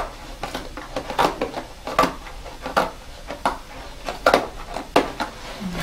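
Scissors snipping through thin cereal-box cardboard, one short crisp cut about every three-quarters of a second.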